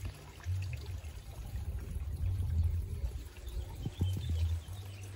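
Shallow stream water sloshing and trickling, under irregular low rumbling swells.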